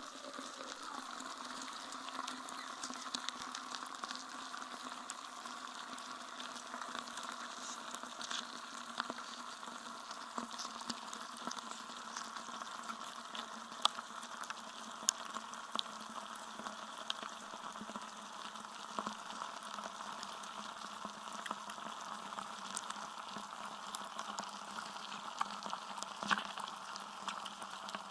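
Steady crackling hiss peppered with small clicks, like static or a worn recording, with faint steady droning tones underneath.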